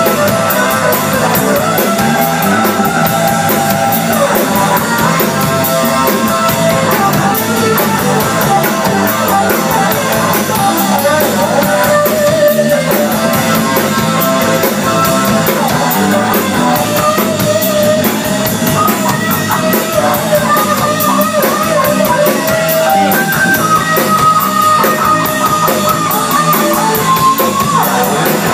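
Live rock band: an electric guitar plays a lead line of long held and bent notes over a drum kit keeping a steady beat.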